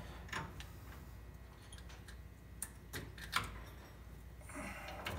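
A few light metallic clicks and taps as a roller chain's master link is fitted by hand onto the drive sprocket, with a short rustle near the end.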